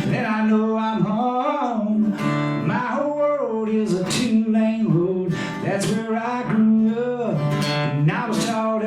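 A man singing a verse to his own strummed acoustic guitar.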